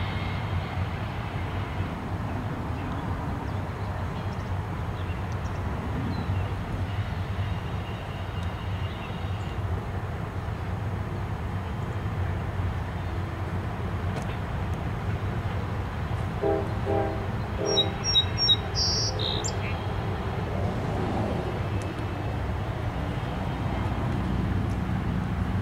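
A distant intermodal freight train rolling across a long bridge, a steady low rumble that holds throughout. A bird chirps briefly about two-thirds of the way in.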